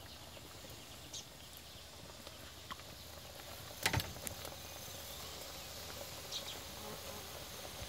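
Mushroom curry simmering in a wok over a wood fire: a faint, steady bubbling hiss with a few small ticks, and one sharper knock about four seconds in, after which the bubbling is a little louder.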